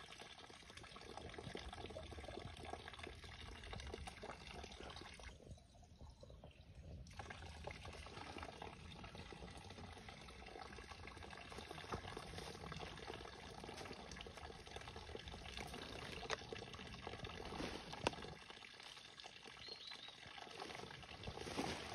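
Spring water pouring in a thin steady stream from a spout onto a moss-covered trough. The trickle and splash dips briefly about six seconds in.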